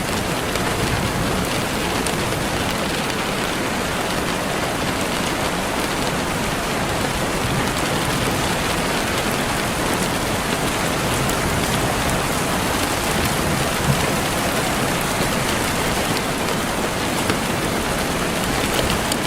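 Steady rainfall: an even hiss of rain on a surface, with a few louder drops standing out.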